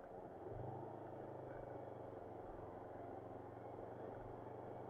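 Yamaha MT-25's 250 cc parallel-twin engine running steadily as the motorcycle rolls along, its note picking up again about half a second in, over a constant hiss.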